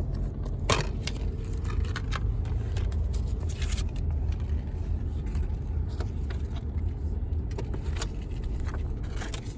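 Steady low rumble of a car cabin, with scattered clicks and rattles of a plastic DVD case being handled and opened.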